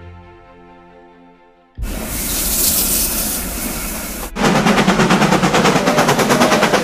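Soft string music fading out, then a sudden loud rush of steam and smoke as a steam locomotive passes close beneath. Just past halfway this changes abruptly to a steam locomotive's rapid, even exhaust chuffs, about six a second.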